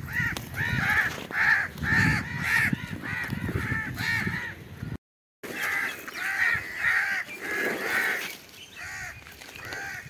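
A flock of crows cawing over and over, many harsh calls following and overlapping one another. About halfway through, the sound cuts out completely for about half a second, then the cawing resumes.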